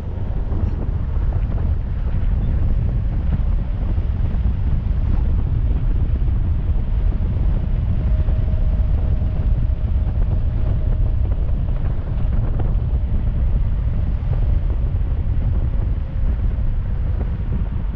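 Wind buffeting the microphone of a helmet-mounted camera while riding an electric bike at around 45 km/h: a steady, loud low rumble. A faint steady whine sits under it through the middle.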